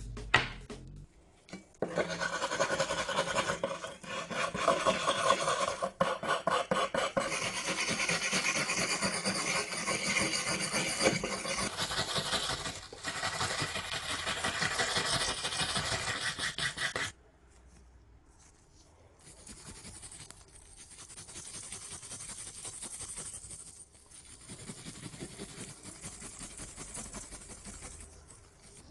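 Fast, repeated rasping and rubbing strokes of an abrasive against a surface, like hand sanding or filing, running for about fifteen seconds and then stopping abruptly. Fainter scraping follows.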